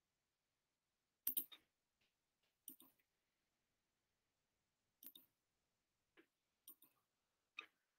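Near silence broken by five short, faint clicks spread a second or two apart; the first, about a second in, is the loudest and comes as a quick double.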